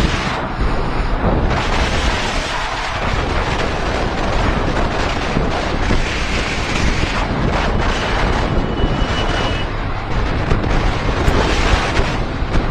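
Heavy wind rushing over the microphone on a motorcycle ridden at speed, with the bike's engine running underneath.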